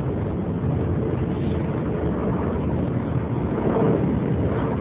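Steady low rumbling noise with no distinct events, of the continuous mechanical kind such as distant vehicle noise.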